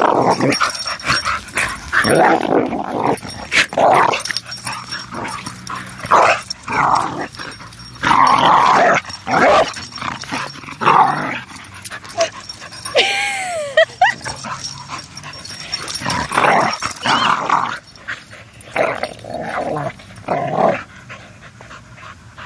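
Two dogs growling and snarling in rough bursts as they wrestle in play, with a brief high whine about thirteen seconds in.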